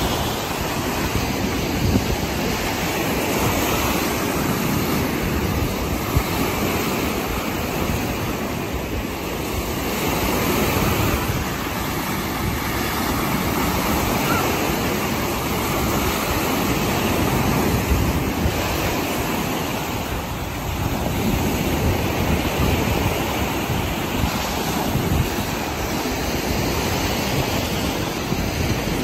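Small waves breaking and washing up a sand-and-pebble beach: a continuous wash of surf that swells and eases every few seconds, with wind buffeting the microphone.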